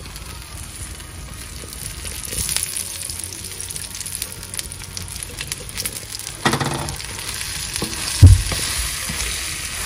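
Paratha frying in ghee in a hot pan, sizzling and crackling steadily, getting louder a couple of seconds in. There is a short louder noise about six and a half seconds in and a thump about eight seconds in.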